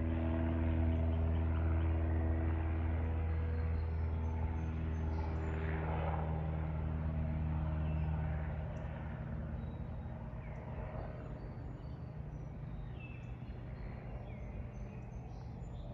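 Low engine drone of a passing aircraft, its pitch sinking slowly, loud at first and fading about halfway through. Birds chirp over it.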